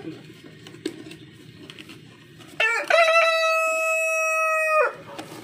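A rooster crowing once: a single long held crow beginning about halfway through and breaking off with a drop in pitch near the end. Before it, faint clicks and rustling as a cardboard poultry carrier box is latched shut.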